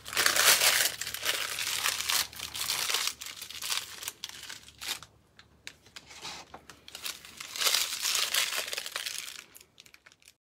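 Clear plastic piping bag crinkling as it is twisted and squeezed in the hands, in two spells: one from the start for about three seconds and another about two-thirds of the way through, with faint rustles between.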